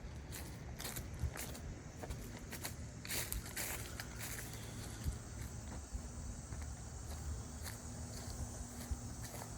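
Footsteps walking outdoors, irregular soft crunches and rustles. Faint steady high-pitched insect calls come in about halfway through.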